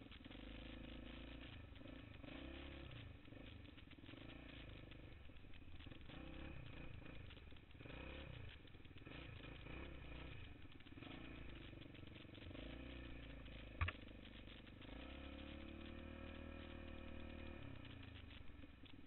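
ATV engine running at low revs, its pitch rising and falling with the throttle, with a single sharp click about fourteen seconds in.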